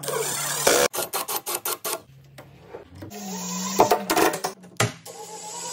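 Screws being driven with a long screwdriver bit, first through a metal door hinge and then into a plastic jig: rapid clicking and scraping, with a steady low hum from about three seconds in.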